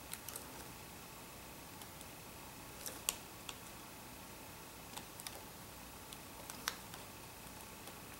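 Faint, scattered small clicks and taps of metal tweezers working at a laptop's display video-cable connector and its tape, a couple of sharper ticks among them.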